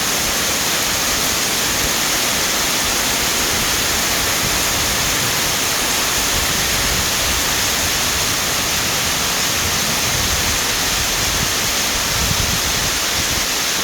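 Heavy rain pouring down in a dense, even hiss.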